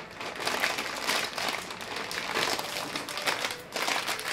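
Foil bag of Lay's potato chips crinkling and rustling as it is handled and opened, in a run of irregular crackles.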